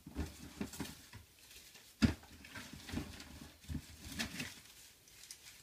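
Irregular knocks and rustles of hands handling a plastic enclosure and putting plants into it, with one sharp knock about two seconds in.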